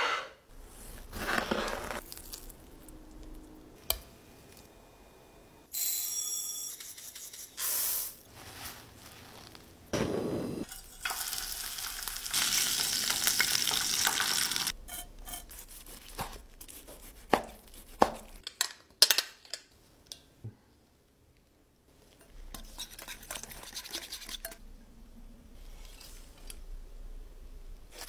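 Kitchen food-prep sounds: a sesame-crusted tuna steak sizzling in a frying pan for a few seconds about halfway through, among scattered clicks and knocks of utensils and tongs, and a knife cutting green onions on a wooden board near the end.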